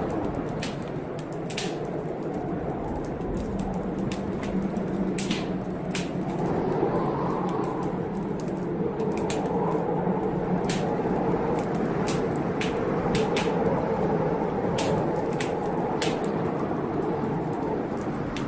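Fireplace fire crackling, with sharp irregular pops about once or twice a second over a steady low rushing background.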